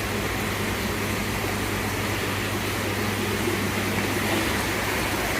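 Steady hum and hiss of koi pond pumps and aeration, with a low hum that holds one pitch throughout.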